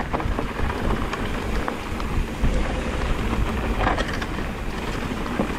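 Mountain bike riding fast over a rocky trail: tyres rolling and crunching over rock and the bike rattling, with a constant stream of small knocks and wind rumbling on the action camera's microphone.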